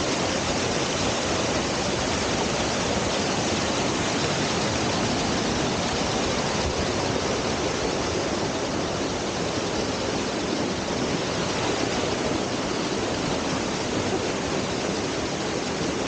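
Steady rush of water from a cascade waterfall pouring into a rock pool.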